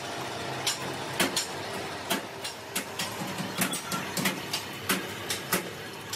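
Old milling machine running with a steady hum while its rotating cutter head machines the point of a hydraulic-breaker chisel. Sharp metallic clicks and knocks come at an uneven pace, about two or three a second.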